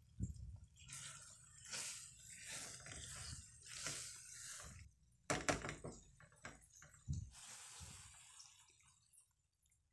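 Spatula stirring macaroni through a thick, creamy white sauce in a nonstick pan: irregular wet squelching and slapping, with one louder burst about halfway through.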